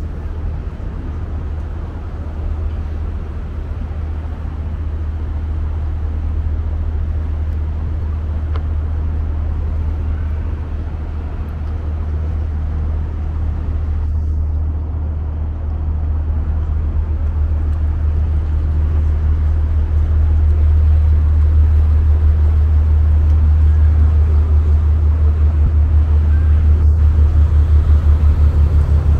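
Sightseeing boat's engine running with a steady deep drone, getting louder, with an even throbbing pulse in the last several seconds.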